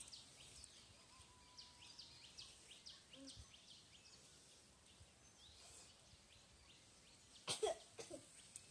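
Small birds chirping in quick, short, high calls, repeated a couple of times a second over faint outdoor ambience. A brief louder sound stands out about three-quarters of the way through.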